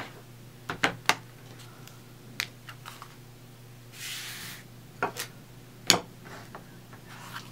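Scattered light taps and clicks of hands handling a paper scrapbook page and small items on a cutting mat, with a brief swish about four seconds in as a hand sweeps across the mat. The loudest tap comes near the end.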